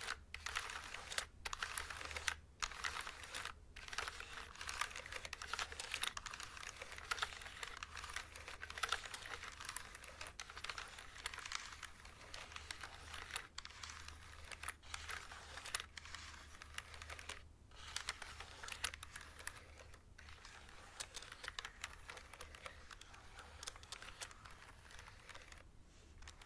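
Fast, continuous typing on a mechanical keyboard: a dense run of key clicks broken by a few short pauses.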